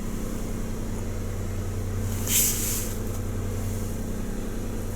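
2015 Suzuki Celerio's 1.0-litre three-cylinder petrol engine idling steadily, heard from inside the cabin, with a short hiss about halfway through.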